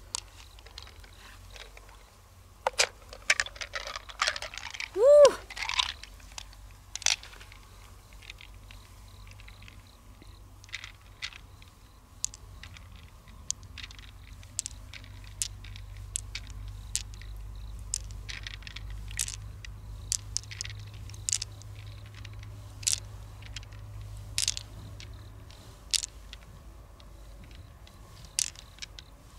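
Pearls clicking against one another and the shell as they are picked out of a pearl mussel's flesh and gathered in a palm, with wet squelching of the soft tissue. A short squeak about five seconds in is the loudest moment.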